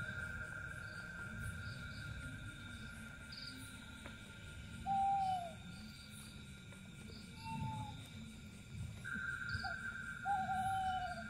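An owl hooting: four short falling hoots, the first about five seconds in and the loudest, the others close together near the end. They sound over a steady high drone and repeating chirps of night insects.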